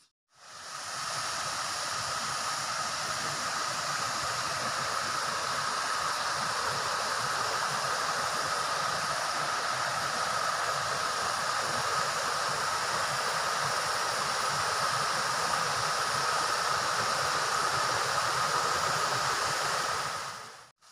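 Shallow stream rippling over rocks: a steady rush of running water, with a steady high tone running through it. It fades in at the start and cuts out near the end.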